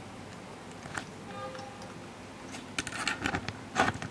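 Close handling noise of a camera and plastic tripod being fitted together: scattered clicks and rattles, one click about a second in, then a denser run of sharp clicks in the second half with the loudest just before the end.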